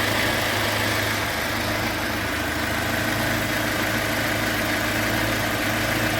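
UAZ Patriot engine idling steadily and evenly while warming up. It runs smoothly, with no lifter or chain-tensioner clatter heard.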